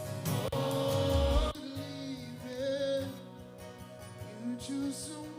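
Worship band music with singing, played as a personal monitor mix. About a second and a half in, the bass drops away and the music goes thinner.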